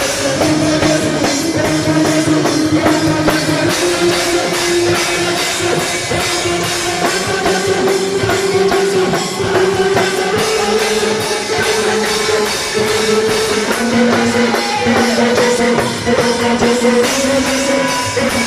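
Rock music with a drum kit and guitar, and a held melody line that steps up from note to note and back down.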